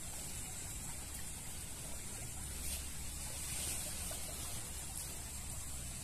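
Steady trickle of a shallow stream, with a high hiss and a low rumble underneath and no distinct events.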